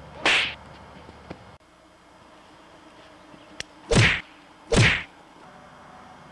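Dubbed fight punch sound effects: three sharp whacks, one just after the start and two in quick succession about four and five seconds in.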